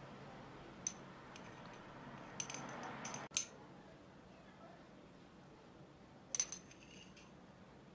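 Light glass clinks as red pepper flakes are spooned from a small glass bowl into jars of sliced radishes. A few scattered clinks come in the first half, the loudest just after three seconds in, then a quick cluster of two or three more about six and a half seconds in.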